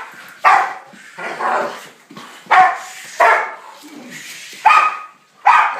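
Rottweiler barking repeatedly, about six loud barks at uneven intervals, at a helper who is waving his arms to provoke it during protection training.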